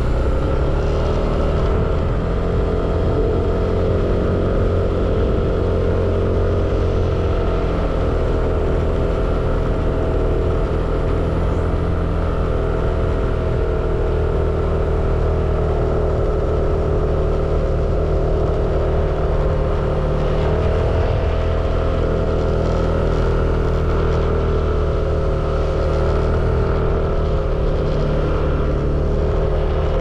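A motor vehicle's engine running steadily, its pitch shifting slightly up and down now and then.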